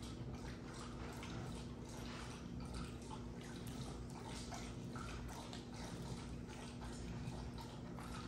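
Worcestershire sauce dripped onto a rack of raw pork spare ribs and spread over the meat by hand: faint wet dripping and smearing with a few soft taps, over a steady low hum.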